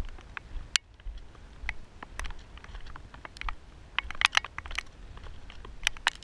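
Hiking boots crunching and clinking on loose shale scree, an irregular run of sharp rock-on-rock clicks with a denser flurry of them about four seconds in, over a low wind rumble on the microphone.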